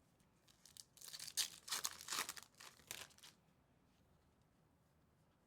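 Trading card pack wrapper being torn open, a burst of tearing and crinkling lasting about two seconds from about a second in.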